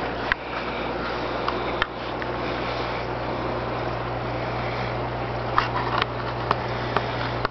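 Steady hum and hiss of a reef aquarium's pumps and water circulation running, with a few sharp clicks now and then.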